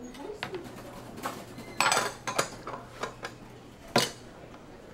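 A series of sharp clinks and knocks of hard objects being handled, about eight in all, with the busiest cluster about two seconds in and a single sharp knock near four seconds.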